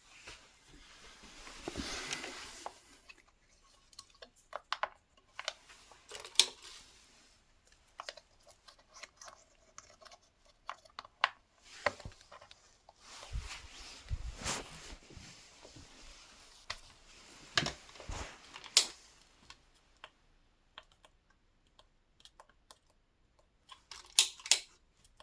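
Scattered clicks, taps and rustling of close handling, with no motor or steady hum at any point.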